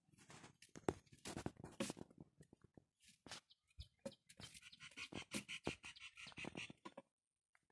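Footsteps in flip-flops on a dirt path, with rustling and crackling from grass and maize leaves brushing past, in short irregular clicks and scrapes. The sound cuts off abruptly about seven seconds in.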